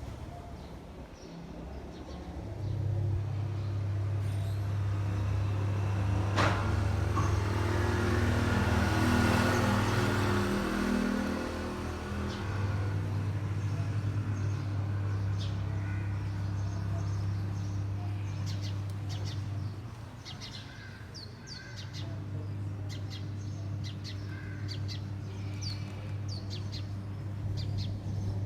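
Small cage birds chirping in short, quick high notes, many of them in the second half, over a steady low mechanical hum that pauses briefly twice. A single sharp click about six seconds in.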